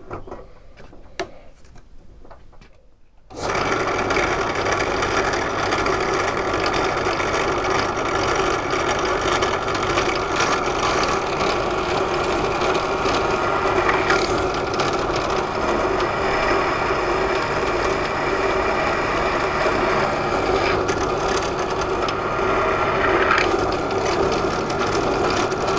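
Bench pillar drill (drill press) switched on about three seconds in and running steadily, drilling the rivet-pin holes through an all-metal bayonet handle held in a drilling jig. A few faint handling clicks come before it starts.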